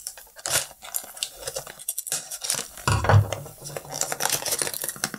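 Small cardboard blind box being cut and pulled open by hand: scraping, tearing and rustling of thin card in short irregular bursts, with a dull knock about three seconds in.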